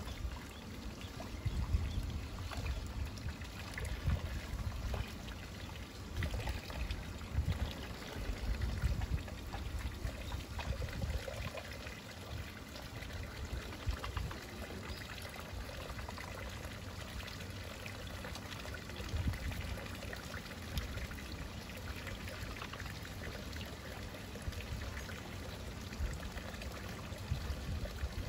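Thin streams of hot water falling from spouts into a hot-spring pool, splashing steadily onto the water surface, with an uneven low rumble underneath.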